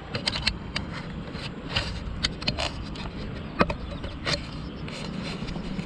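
Handling noise from an angler playing a hooked fish on a long pole rod: scattered sharp clicks and scrapes over a low steady rumble, with one louder click about three and a half seconds in.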